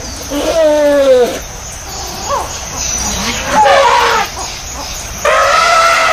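Elephant calling: several calls, the first sliding down in pitch, two shorter ones in the middle, and a longer held call near the end.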